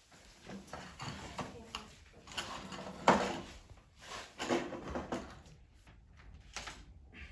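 Irregular knocks, clicks and clatter of things being handled, the loudest knock about three seconds in.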